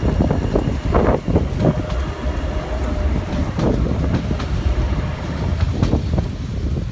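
Class 399 electric tram-train passing close by on ballasted track: a steady low rumble of wheels on rail with irregular clicks and knocks. A faint steady whine runs over the first few seconds.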